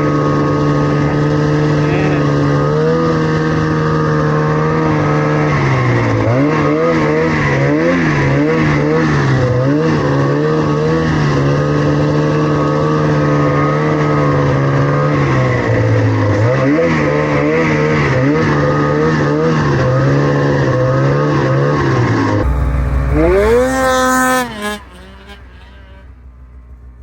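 Snowmobile engine running under load, its revs rising and falling over and over. Near the end the sound changes abruptly, the revs climb quickly once, and then it drops to a much quieter level.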